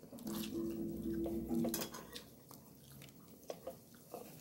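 Utensil clinking and scraping on a plate of food in short, light clicks, with a low steady hum for about a second and a half near the start.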